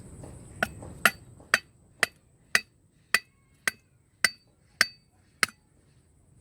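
Something hard struck repeatedly: ten sharp knocks, each with a short ring, about two a second.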